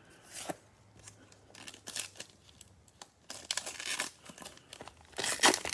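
Cellophane wrapper of a Mosaic football cello pack being torn open and crinkled in irregular bursts, the loudest crinkling near the end.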